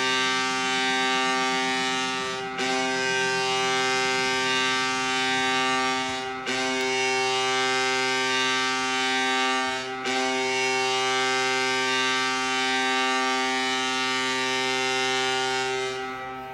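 An NHL arena goal horn blowing in long blasts, with short breaks about two and a half, six and a half and ten seconds in. The last blast fades out at the end.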